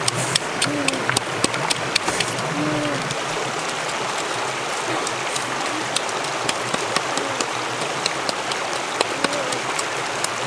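Creek water flowing steadily, with sharp irregular taps of a stone pestle pounding in a coconut-shell bowl, the taps quick in the first couple of seconds and sparser after.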